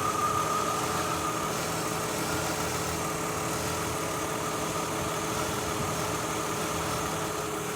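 Mazda Tribute's V6 idling roughly with a misfire, the idle jumping around and trying to stall. The misfire is blamed on an ignition coil arcing from oil leaking past the valve cover gasket into the plug well.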